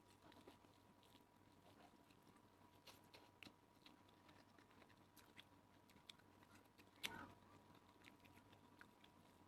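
Faint chewing and small clicks of eating, with one louder click about seven seconds in. A faint steady tone sits underneath.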